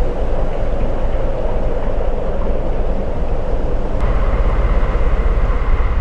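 A vehicle running: a loud, steady rumbling drone. About four seconds in, a steady high tone joins it.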